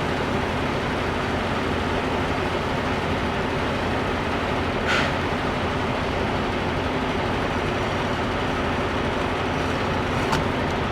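Semi-truck running on the road, heard inside the cab: a steady drone of diesel engine and road noise, with a brief hiss about five seconds in.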